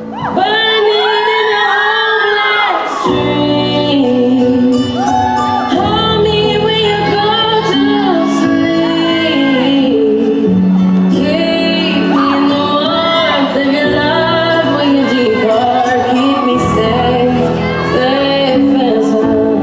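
A song with a woman singing, played over a large hall's sound system. A low sustained accompaniment comes in about three seconds in under the gliding vocal line.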